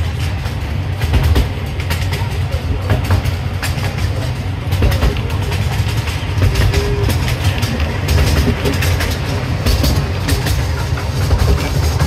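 Miniature-railway passenger car rolling along the track: a steady low rumble with quick clicking and rattling from the wheels and car body.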